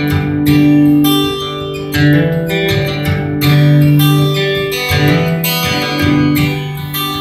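Acoustic guitar strumming chords in an instrumental passage of a song, with no singing, a fresh strum and chord roughly every second.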